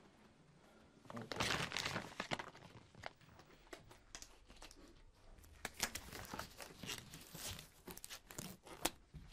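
Disposable gloves being pulled on, crinkling and rustling, then scattered small clicks and rustles as gloved hands handle things on a table.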